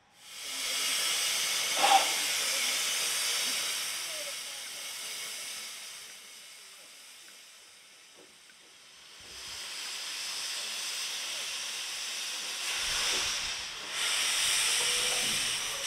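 Steam locomotive blowing off steam in two long hisses. The first starts suddenly, then fades after several seconds. The second builds up and is loudest near the end, where steam is escaping from the cylinder drain cocks of Avonside 0-4-0 saddle tank No. 1340 Trojan.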